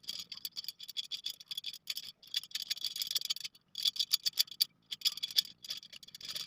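Spoke wrench working the nipples of a 36-spoke motorcycle rear wheel, a little at a time on each spoke: quick metallic clicking and ticking in runs with brief pauses.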